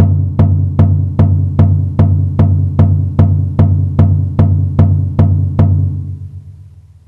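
A low-pitched drum struck in a steady beat of about two and a half hits a second, around fifteen hits in all. The last hit rings on and fades away over about a second and a half.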